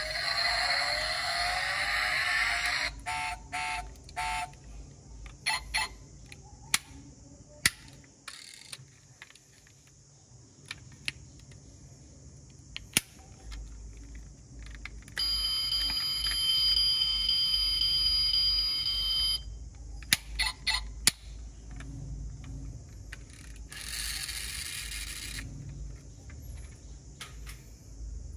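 Die-cast toy car's built-in sound module playing electronic effects: a loud sweeping engine-like sound for the first couple of seconds, then a steady high electronic buzzing tone for about four seconds in the middle. Sharp plastic-and-metal clicks of its doors and parts being worked come in between.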